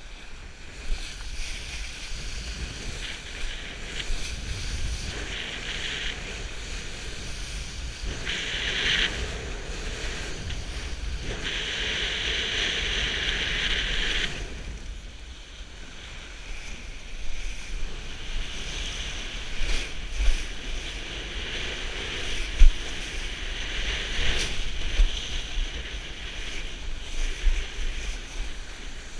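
Wind buffeting the microphone and water rushing and hissing as a kiteboard rides through shallow breaking surf, with louder surges of spray hiss several times in the first half and a few sharp thumps later on.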